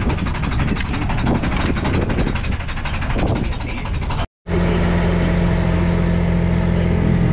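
Fishing boat's engine running steadily. The sound drops out for a moment about four seconds in, then returns as an even engine drone with the wash of the boat's wake.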